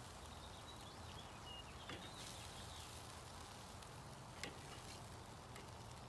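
Chicken drumsticks sizzling faintly over charcoal on a Weber kettle grill, with a few sharp clicks of metal tongs against the grill grate, the loudest about four and a half seconds in.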